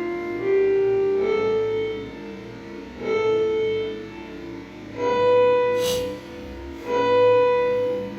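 Instrumental background music: held melodic notes with a plucked-string character, a new phrase starting about every two seconds.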